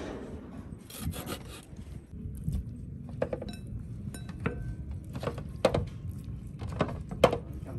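Scraping and rubbing on a hard surface, broken by scattered sharp knocks and clicks, several of them stronger in the second half.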